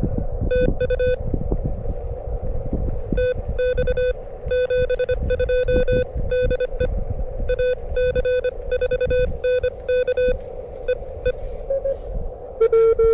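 Morse code (CW) from an amateur radio transceiver, a single steady-pitched tone keyed into short and long beeps at about 25 words per minute, over a low rumble of wind on the microphone. Near the end a slightly lower, louder keyed tone takes over.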